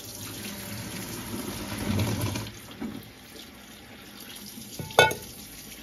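Hot pasta cooking water pouring from a tipped pot into a stainless steel sink while the tap runs, swelling louder about two seconds in. About five seconds in, a single sharp clank rings out.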